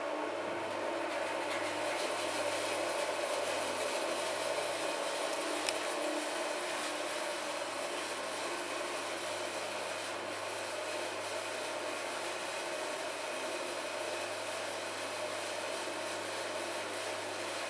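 Benier Diosna SP 160 D spiral mixer running steadily with its bowl empty: the three-phase electric drive motor and the turning spiral hook and bowl make an even mechanical hum. One light tick sounds about six seconds in.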